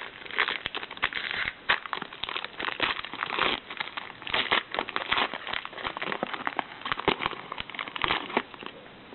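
Trading card pack wrapper being torn open and crinkled, with cards rustling as they are pulled out and handled.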